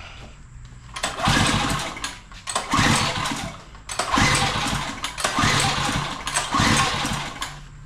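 212cc go-kart engine being pull-started and cranked in about five bursts of about a second each, catching and sputtering between pulls.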